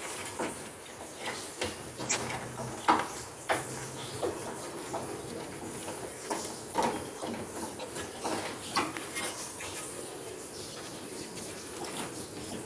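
Irregular light clicks and knocks, a few seconds apart, over a faint steady hiss; the sharpest comes about three seconds in.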